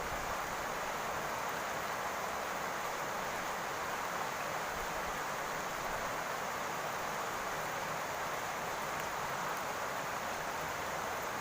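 Steady rain falling on a roof, an even hiss with no single drops standing out.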